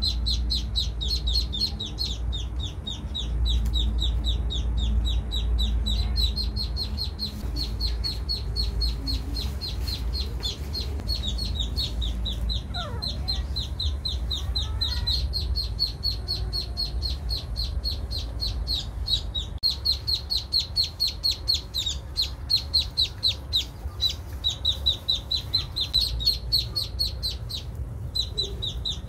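Ducklings peeping: a fast, unbroken string of short, high, downward-sliding peeps, several a second, over a steady low rumble.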